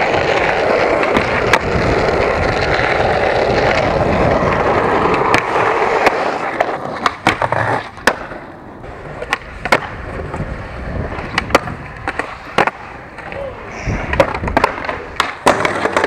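Skateboard wheels rolling steadily on rough asphalt for about six seconds. Then come a string of sharp cracks and clacks: the board's tail popping, the board striking and grinding a bench and a handrail, and landings.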